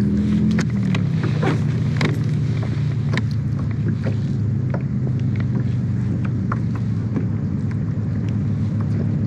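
Steady low motor hum, its pitch easing down slightly in the first second, with scattered light ticks over it.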